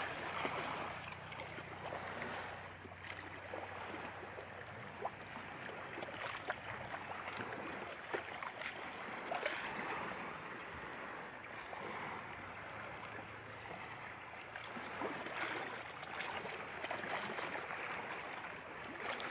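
Faint, steady water sound of small waves lapping at a lakeshore, with scattered light clicks.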